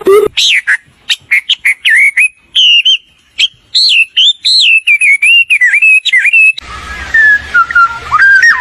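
A bird singing a quick run of varied whistled notes and chirps that slide up and down in pitch. About six and a half seconds in, it changes to another recording: a bird whistling more softly over a steady hiss and low hum.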